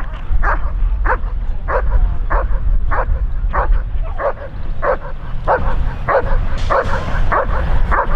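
German Shepherd dog barking steadily and rhythmically, about three barks every two seconds, over a steady low rumble.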